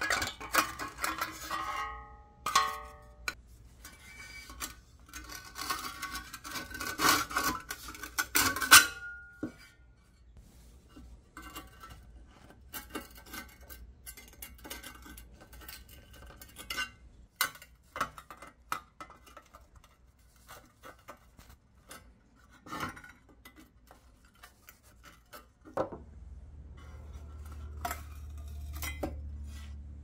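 Pressed-steel body parts of a vintage Tonka toy bulldozer clanking, scraping and rattling on a wooden bench as the toy is taken apart by hand, with a flat screwdriver prying at a folded sheet-metal tab. The metal rings briefly a couple of seconds in; the clatter is busiest in the first third.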